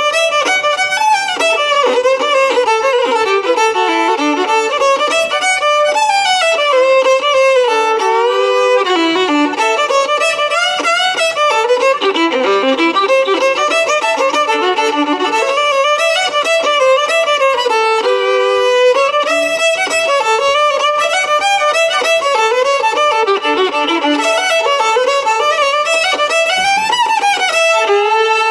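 Solo fiddle played with the bow: an unbroken melody of notes climbing and falling.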